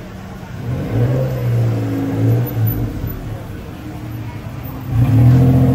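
Motor vehicle engines passing close by on a street. One loud pass comes about a second in and another near the end.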